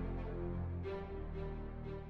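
Instrumental background music with held chords and a few new notes coming in.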